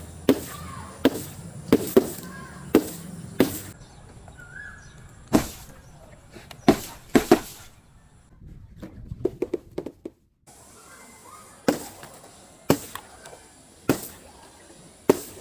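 A series of sharp cracks and pops, about one a second at uneven spacing, with a quick cluster of smaller crackles about two-thirds of the way through: objects being broken and crushed.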